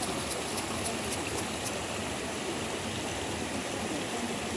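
Shallow mountain stream running over rocks below a small waterfall: a steady rush of water.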